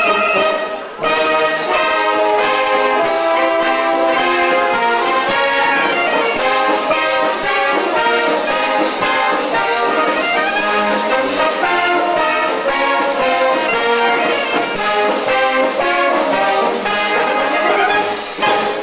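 Wind band of brass and clarinets playing a piece loudly, with a brief break about a second in; the piece ends near the close.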